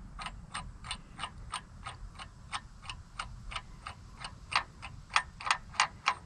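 Socket ratchet clicking steadily as the harmonic balancer bolt on the crank snout is turned by hand, about three clicks a second, a few louder near the end.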